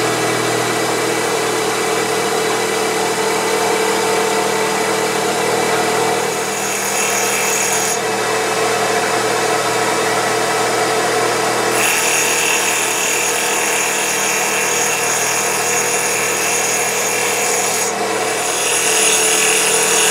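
CNC wood lathe running: the spindle motor hums steadily with a whine while the homemade cutter turns a spinning wood blank. A higher hiss of the cut comes and goes as the cutter moves along the workpiece, and it is a little louder near the end.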